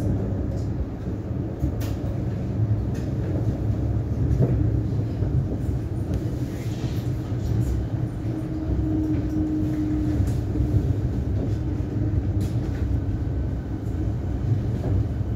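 Siemens Nexas electric multiple-unit train running: a steady low rumble with occasional clicks from the wheels on the track.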